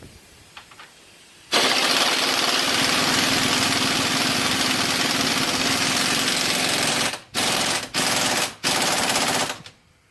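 Impact wrench hammering in a bolt on a rear lower control arm: one long rattling run of about six seconds, then three short bursts near the end as the bolt is snugged.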